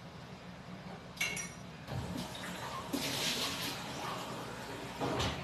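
Water being poured or run, out of sight, as a glass of water is readied for the curry pot, with a brief clink about a second in.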